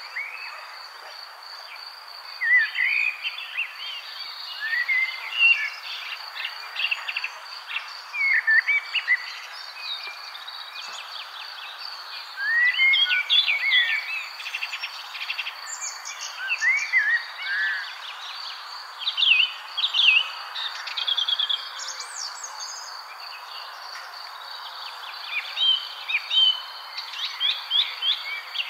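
Birds chirping and singing in short, varied phrases over a steady, high, pulsing insect trill.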